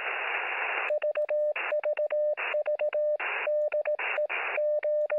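Morse code as heard on an amateur-radio receiver: a steady CW tone of about 600 Hz keyed in dots and dashes. Static hiss fills the opening second and comes back in the gaps between letters.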